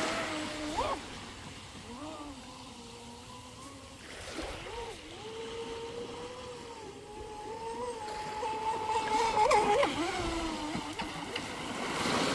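Electric motor of a carbon-fiber RC speedboat whining as the boat runs on the water, its pitch rising and falling. It grows louder from about eight seconds in, with a few quick upward blips near the end, and a hiss of water or wind at the start and end.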